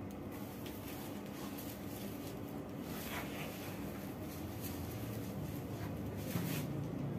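Steady low background hum with faint scattered rustles and ticks; a low rumble swells near the end.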